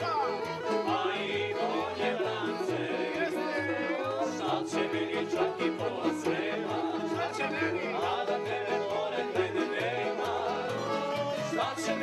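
Background music: a song with a singing voice over instruments and a steady, stepping bass line.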